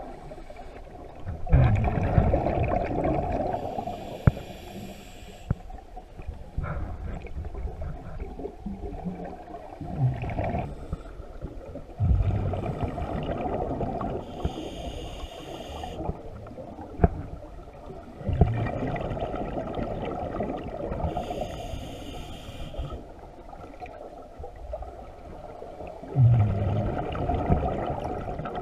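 A scuba diver breathing through a regulator underwater: the gurgling rush of exhaled bubbles alternates with the shorter hiss of each inhalation, a full breath roughly every seven or eight seconds. A single sharp click cuts through about two thirds of the way in.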